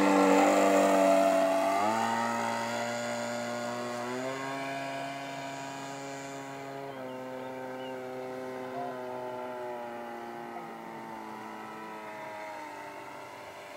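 Radio-controlled Cub model airplane's motor and propeller droning in flight. It is loudest as it passes close at the start, then fades as it flies away, its pitch stepping up twice in the first few seconds and dropping once partway through.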